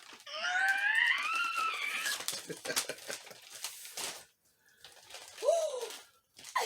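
A high, rising squeal-like cry lasting about two seconds, then scattered clicks and crinkling of toy packaging being torn open, with a short squeak near the end.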